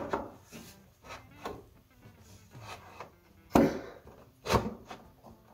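Wooden boards being slid and pressed into place in a wooden frame: several sharp wood-on-wood knocks, the loudest about three and a half seconds in, with light rubbing and scraping between them.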